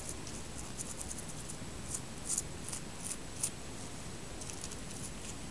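Toothbrush bristles scrubbing soap mixture onto hydrangea leaves and stem: an irregular run of short, dry, scratchy brush strokes over a steady low hiss. The sharpest strokes come around the middle.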